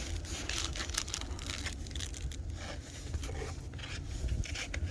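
Irregular scrapes and light clicks of a metal battery hold-down bracket being handled and fitted against a car battery in the engine bay, over a steady low rumble.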